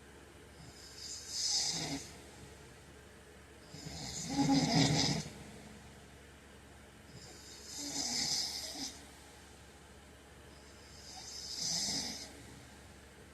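A man snoring in his sleep: four snores, one every three to four seconds, the second one the loudest.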